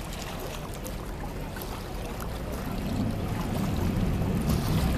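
Canal tour boat's engine running with water washing past the hull, a steady low rumble that grows louder about three seconds in.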